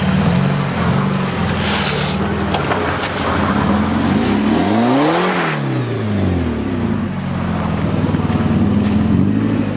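Nissan 240SX (S13) engine running, revved once about halfway through, its pitch rising and falling back to a steady run.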